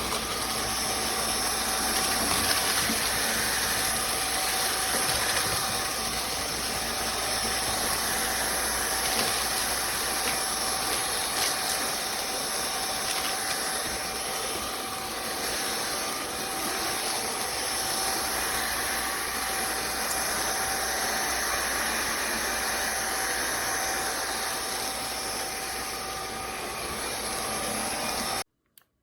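INTETURE BP10 450 W cordless stick vacuum running steadily: a motor whine over a rush of air, cutting off abruptly near the end.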